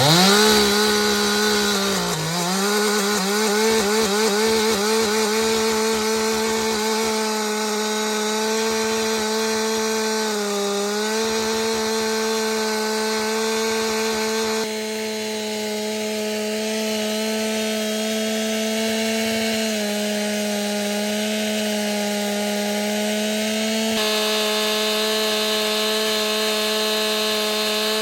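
Gas chainsaw revving up to full throttle and held there, cutting wood with a steady high engine note. The pitch dips briefly twice.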